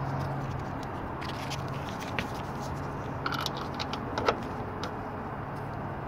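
Light metallic clicks and clinks of a steel hinge pin and metal bushings being handled and fitted in a Toyota Tundra door hinge, a few scattered taps with the sharpest about four seconds in, over a steady low hum.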